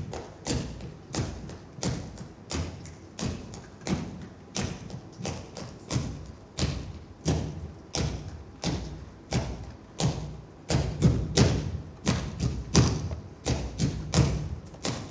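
Bare feet stamping out a pizzica rhythm on a wooden stage floor, a steady beat of about two thuds a second. About ten seconds in the stamps grow louder and come more often.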